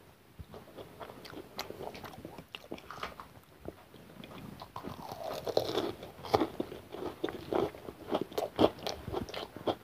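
Close-up chewing of a fried chicken pakora: irregular biting and crunching, growing louder and denser from about halfway through.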